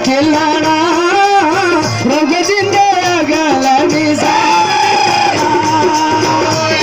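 Dogri folk singing with musical accompaniment: an ornamented, wavering vocal melody, with one long held note about four seconds in.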